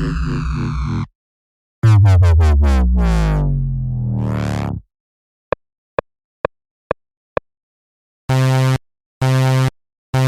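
A run of synthesized cartoon sound effects: a falling synth sweep that cuts off about a second in, then a louder tone gliding down for about three seconds, five short blips evenly spaced, and finally a low buzzer-like tone in short repeated blasts.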